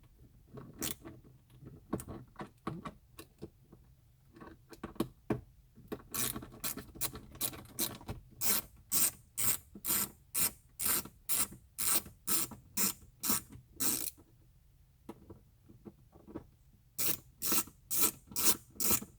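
A hand ratcheting tool clicking in repeated back-and-forth strokes as it backs out screws holding a plastic dash trim panel. The strokes come scattered at first, then in a steady run of about two to three a second, stop for a couple of seconds, and start again near the end.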